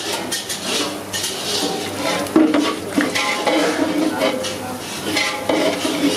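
A metal ladle stirring and scraping in a large pan of sizzling food, with irregular clanks against the pan.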